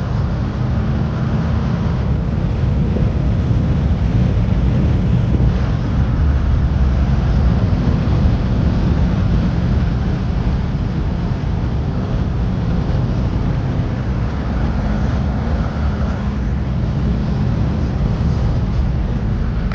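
A car driving along steadily: a continuous low rumble of engine and road noise, a little louder a few seconds in.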